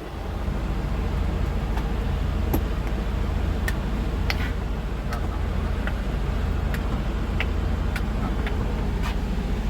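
A motor running steadily with a low, evenly pulsing rumble that swells in at the start, with scattered light clicks over it.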